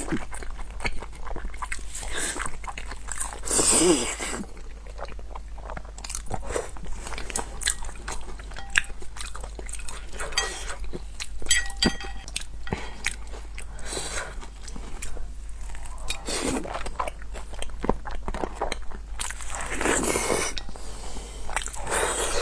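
A person biting and chewing crunchy food close to the microphone: a dense run of crisp crackles and crunches, with a few louder bites.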